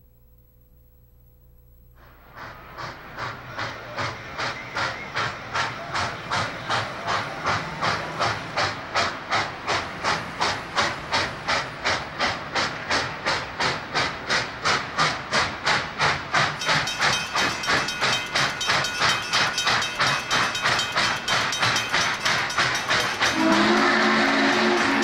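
Steam locomotive working, starting about two seconds in: a steady run of exhaust chuffs at about two to three a second, quickening slightly, over hissing steam. Near the end its steam whistle blows a steady chord.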